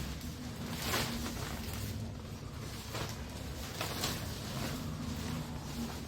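Rustling and handling noises from a tent being set up, with a few short sharp rustles about a second apart over a low steady rumble.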